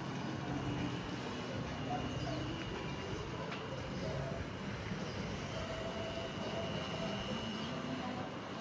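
Steady outdoor background hum with faint distant voices, and a thin high steady tone.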